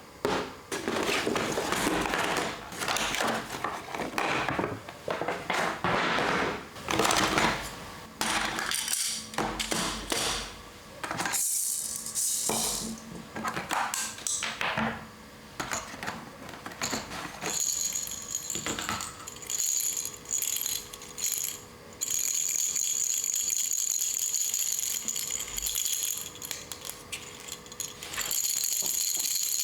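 Toy vending machine being handled: clicks, clatter and rattling of small plastic parts and toy coins. In the second half a steady high-pitched tone sounds under the handling.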